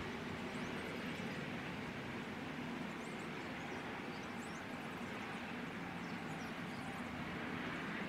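Steady rushing wind, with faint, short, high bird chirps scattered through it.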